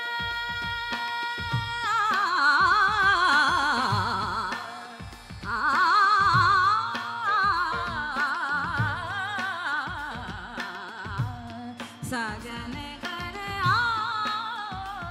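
A woman singing an Indian classical song into microphones. She holds a steady note at first, then sings fast, wavering ornamented runs over a tanpura drone, with low tabla strokes keeping a slow beat underneath.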